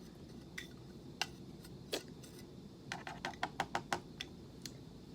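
Sharp crunching clicks of a whole roasted coffee bean being chewed: a few scattered crunches, then a quick run of about eight in the second half.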